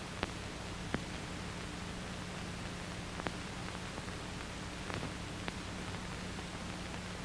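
Hiss and low hum of an old film soundtrack between narration lines, with about five faint clicks scattered through it.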